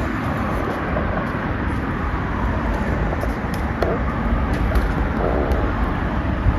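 Road traffic passing, a steady noisy rumble heaviest in the low end.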